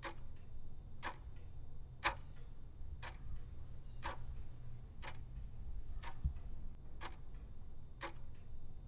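Analog desk clock ticking once a second, over a low steady hum, with a dull low thump about six seconds in.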